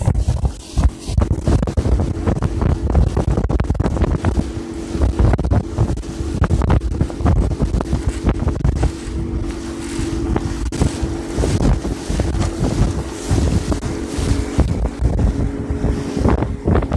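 1989 Yamaha 40 hp two-stroke outboard running steadily, driving an aluminum bass boat across the lake, under heavy wind buffeting on the microphone.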